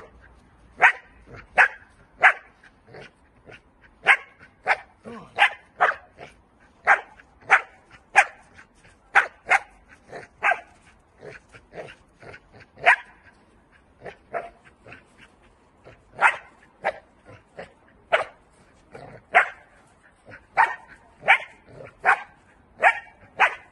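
Young Dutch Shepherd barking over and over in high drive, short sharp barks about one to two a second with uneven gaps.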